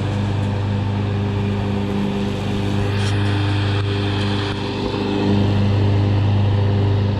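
John Deere X540 riding lawn mower running steadily as it mows, a constant engine hum that grows a little louder about five seconds in.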